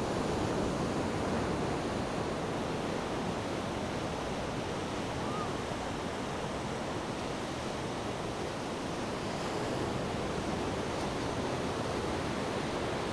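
A steady rushing noise with no pitch, even throughout, with a faint short chirp about five seconds in.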